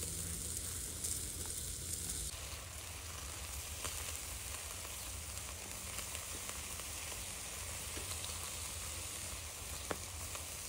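Chicken thighs sizzling steadily on a Nomad charcoal grill's grate, with one light click near the end.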